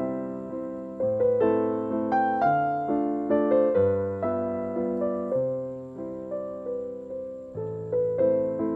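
Background piano music: a slow melody of struck notes, each fading away before the next.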